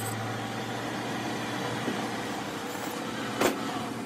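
Metal-turning lathe running steadily with a low hum, spinning a steel workpiece in its chuck. A single sharp clack of the lathe's control lever comes near the end.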